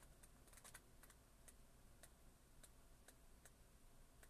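Near silence: faint room tone with light clicks roughly twice a second.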